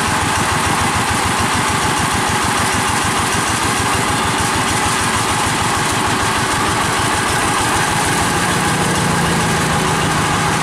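Chinese-made single-cylinder diesel 'shallow' engine of a latahambar mini truck running steadily at idle with a rapid, even chugging.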